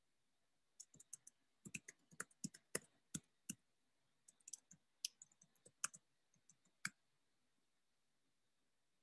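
Typing on a computer keyboard: faint, irregular key clicks in two short runs.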